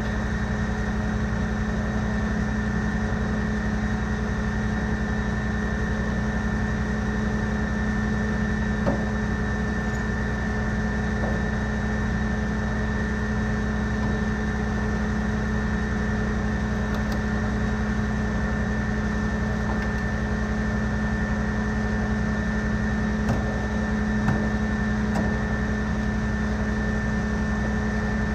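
Fire engine's engine running steadily to drive the pump feeding the hose line: an even, unchanging drone with a steady high whine above it and a few faint knocks.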